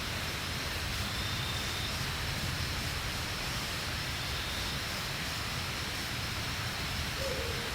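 Steady rushing outdoor noise with a low rumble underneath, and a faint steady high hiss above it; a faint short whistle-like tone about a second in and a brief faint low glide near the end.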